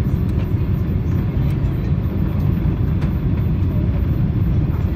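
Steady low rumble inside the cabin of a four-engined Airbus A340 airliner on its landing approach: engine and airflow noise heard from a window seat, with a few faint clicks.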